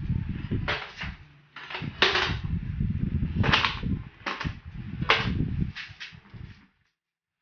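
Scooter engine being wrestled loose from its frame: a run of sharp clunks and knocks of metal and hard plastic parts against each other, with low clattering in between, about seven loud knocks before it stops abruptly near the end.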